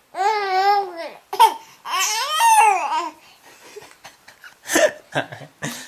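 Four-month-old baby's squealing tickle laughter: two long high-pitched squeals with wavering pitch, one at the start and one about two seconds in, then a few short breathy sounds near the end.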